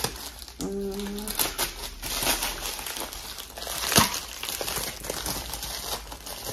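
Black plastic bubble mailer crinkling as it is handled and pulled open by hand: a run of crackly rustles, with one sharper, louder crackle about four seconds in.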